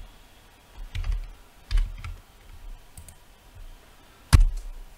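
Scattered clicks and taps from computer mouse and keyboard use, with one sharp click about four seconds in.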